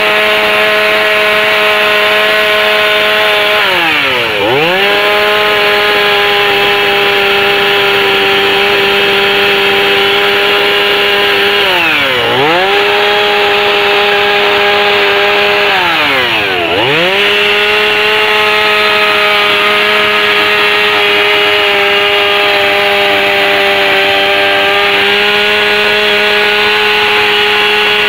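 Gas chainsaw running at high revs as it carves into a log. Three times the engine pitch drops sharply and climbs straight back up as the throttle is eased and reopened, once a few seconds in and twice later.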